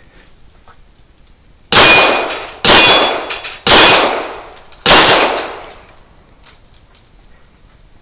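Four shots from a stock Glock 17 9mm pistol, spaced about a second apart, each with a ringing tail.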